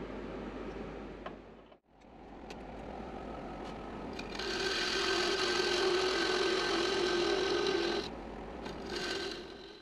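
A wood lathe running while a hand-held turning tool cuts a small wooden spigot: a steady machine whine with the scrape of the tool on the wood, loudest from about four to eight seconds in.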